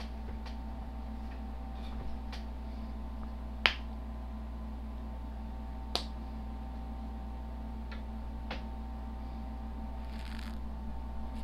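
Steady hum of several fixed tones, with about half a dozen short sharp clicks scattered through it, the loudest about a third of the way in.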